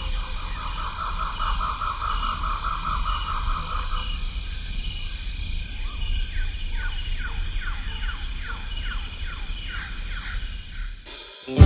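Birds calling over a steady low rumble: a fast trill for the first few seconds, then a run of repeated downward-sliding notes, about two a second. Strummed acoustic guitar music starts near the end.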